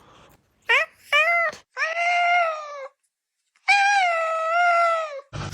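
A cat meowing: two short rising meows, then two long drawn-out meows.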